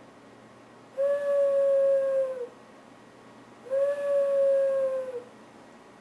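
Loon call imitated by blowing into cupped hands across the thumbs, a hand whistle: two long, steady hoots, each about a second and a half, each sagging slightly in pitch as it ends.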